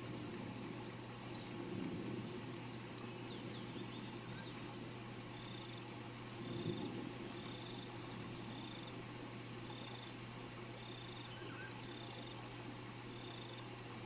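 Steady hiss of rain with a high, even background drone. From about a third of the way in, a short high chirp repeats evenly about every half second, and a few brief bird chirps come through.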